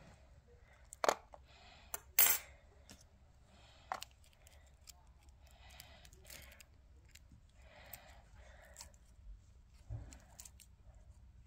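Sharp light clicks and taps of plastic and tweezers against clear plastic tubs, the loudest about two seconds in, followed by soft squishing as fingers press into clear slime in the tub.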